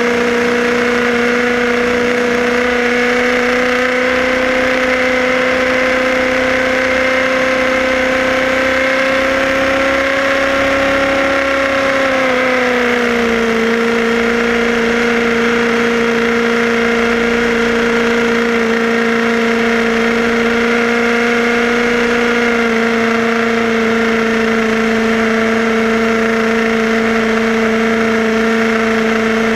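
Tamiya radio-controlled buggy's electric motor and gears whining steadily as it cruises. The pitch creeps up slightly, then drops a little about twelve seconds in and holds.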